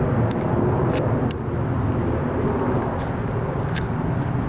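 Twin-engine jet airliner flying overhead: a steady low rumble, with a few light clicks over it.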